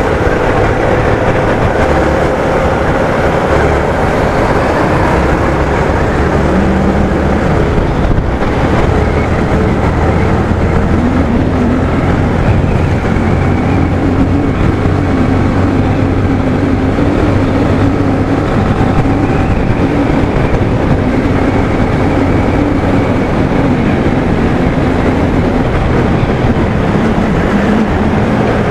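Motorcycle engine running steadily while riding along a road, its pitch shifting a few times with changes in speed.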